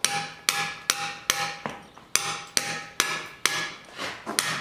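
Hammer striking a stone carver's chisel into a pale natural-stone block: steady, regular blows about two to three a second, each a sharp crack with a short metallic ring.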